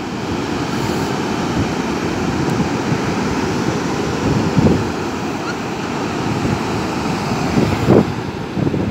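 Ocean surf breaking and washing up a sandy beach, a steady rushing, with wind buffeting the microphone in gusts, the strongest about four and a half and eight seconds in.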